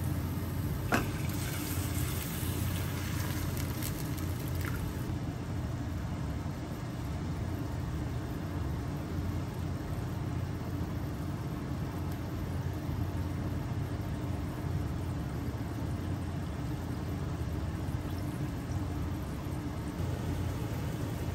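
Sauce poured into a frying pan of half-cooked onions and simmering, over a steady low hum; a couple of light clinks in the first few seconds.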